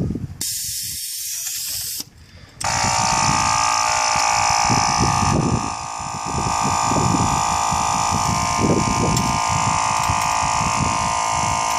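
Air hisses out of the Shotgun Shocks air suspension for about a second and a half as it lets down. After a short pause the on-board air compressor starts, about two and a half seconds in, and runs with a steady high whine, pumping the shocks back up.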